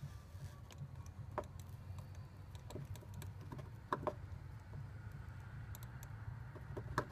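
Scattered light clicks and taps of hand work with a soldering iron and a zip tie on a plastic fan shroud, over a low steady background rumble.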